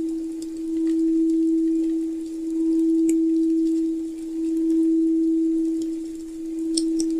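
A steady, mid-pitched pure tone for the solar plexus chakra, swelling and fading in loudness about every two seconds. Faint, sparse crackles of a fire sound over it.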